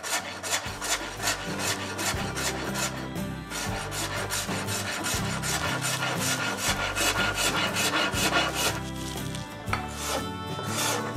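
Wood rasp filing the sawn edge of a pallet-wood board in quick repeated strokes, with a short pause about three seconds in. It is knocking down the high spots and flats left by the bow saw.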